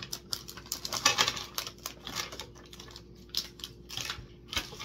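Plastic candy wrapper crinkling and crackling as it is handled, in a run of irregular short crackles that is densest about a second in.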